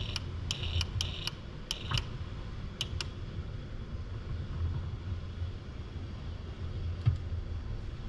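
A run of light, sharp metallic clicks, about ten in the first three seconds and one more near the end, from the UR10e robot's gripper working at the loosened M6 bolts. Under them runs a steady low machine hum.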